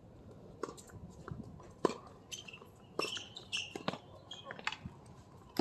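Tennis balls struck by rackets during a doubles rally: a string of sharp pocks roughly a second apart, the loudest a little under two seconds in.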